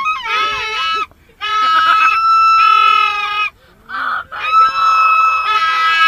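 Two plastic toy stadium horns blown hard in long, wavering honking blasts that overlap at different pitches, with short breaks about a second in and three and a half seconds in.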